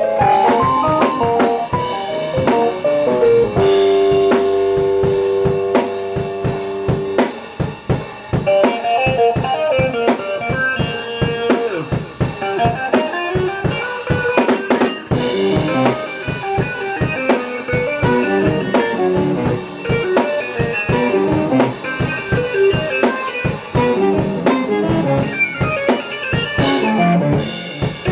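A live band playing instrumental rock: drum kit with a steady beat, electric guitar and keyboard. A note is held for a few seconds near the start.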